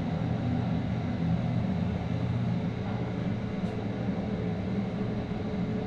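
Elevator cab running: a steady low hum with no sudden changes.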